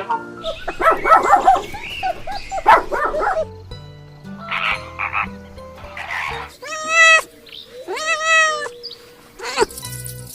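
Animal calls over background music: a run of rapid pulsed croaking calls, then two longer wavering calls.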